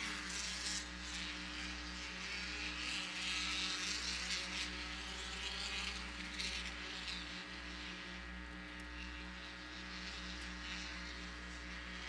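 Engines of several off-road racing buggies running at speed around a dirt short-course track, a fairly steady mixed engine drone.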